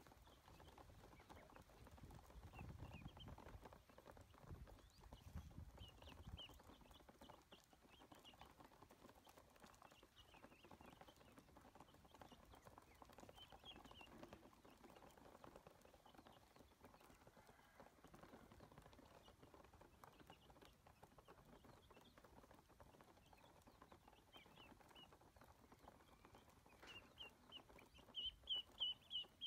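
Ducklings peeping: faint, scattered short high calls, breaking into a rapid run of louder peeps near the end.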